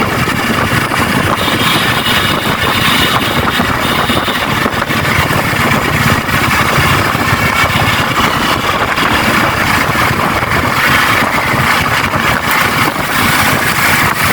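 Yamaha R15 motorcycle's single-cylinder engine running while riding, under a steady loud rush of wind and road noise.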